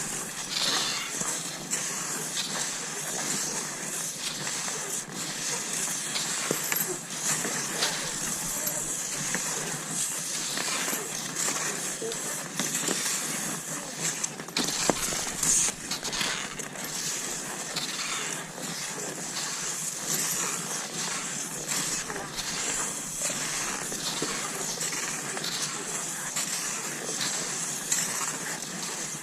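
Cross-country skis sliding over snow: a continuous scraping hiss broken by many small irregular clicks and crackles.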